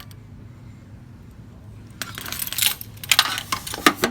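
Keys jangling and a key clicking and rattling in the lock of a small metal post office box, a busy run of metallic clicks starting about two seconds in.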